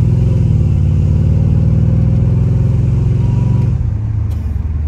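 C4 Corvette's V8 engine pulling under throttle, heard from inside the cabin, its pitch dropping about four seconds in.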